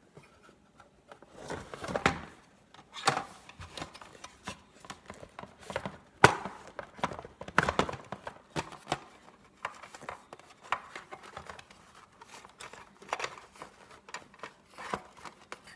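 Handling noise from a Big Mouth Billy Bass being reassembled: irregular rustling and scraping of its fabric skin and plastic parts, with short clicks, one sharp plastic click about six seconds in the loudest.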